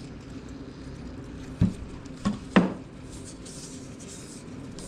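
Three sharp knocks, close together about one and a half to two and a half seconds in, as a metal motorcycle engine cylinder and a spray can are handled on a workbench.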